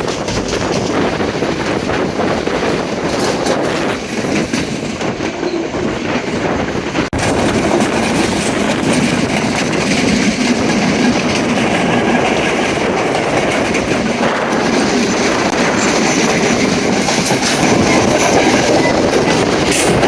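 Passenger train running on the rails: a steady rumble with wheels clattering over the rail joints.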